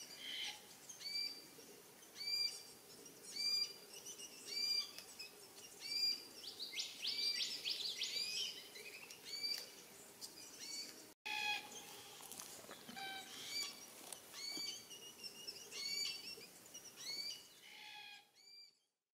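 Forest birds calling: one short, hooked note repeats about once a second, joined briefly by a flurry of quicker chattering calls. The sound fades out near the end.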